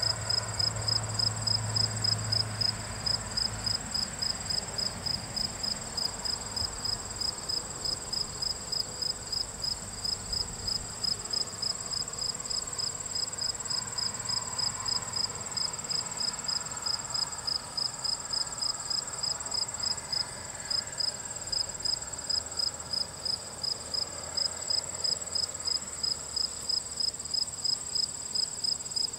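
Crickets chirping in an even rhythm, about two chirps a second, over a continuous high-pitched insect trill.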